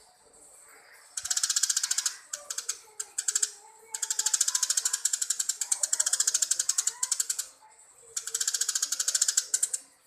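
Sparrows chattering in loud rapid trills of fast repeated chirps, in bursts. The longest run lasts about three and a half seconds, in the middle.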